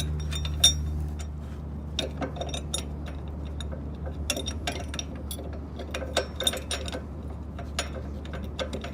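Irregular small metal clinks and clicks as a steel center-stand bracket is pushed up against a motorcycle frame and its bolt is inserted and started by hand, over a steady low hum.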